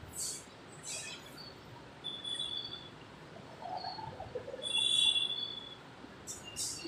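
Birds chirping, with a short high call about two seconds in and a louder, longer one about five seconds in. Faint short scratchy strokes of colouring on paper come between them.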